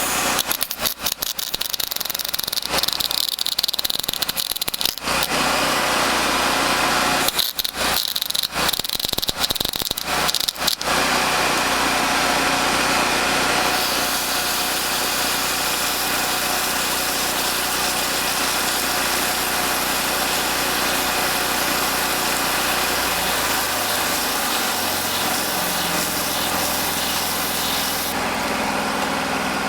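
MIG welding arc crackling and sizzling as a bead is laid. It stutters on and off in short bursts for the first several seconds and again around 7 to 11 s, then burns steadily and stops near the end. A steady low engine hum runs underneath.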